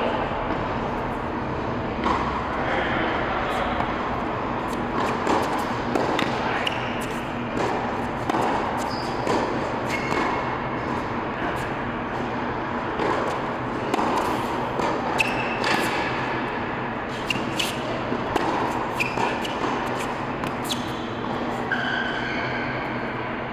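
Tennis rally: irregular sharp pops of the ball off racquet strings and ball bounces on the hard court, echoing in a large indoor hall over a steady background noise.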